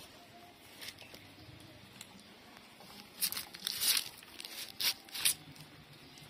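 Puppies suckling at their mother dog's teats: a run of short, crackly smacking sounds between about three and five seconds in, with a few faint clicks before it.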